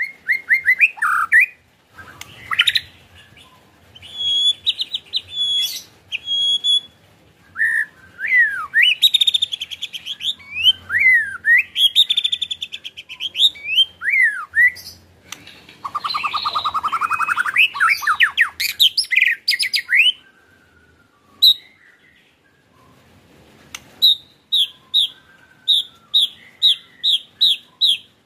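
White-rumped shama (murai batu) singing a varied song of whistled phrases and sliding notes, with a dense, harsh rattling stretch in the middle. The rattling chatter is the 'ketrekan' part of its song. Near the end comes a run of about ten quick repeated notes.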